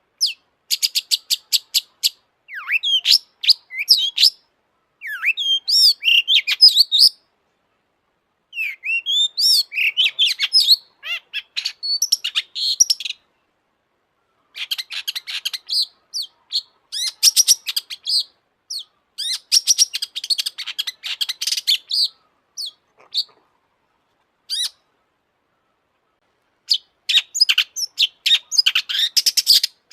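Long-tailed shrike (cendet) singing a fast, chattering song of rapid high chirps and short gliding whistles, in phrases broken by brief pauses.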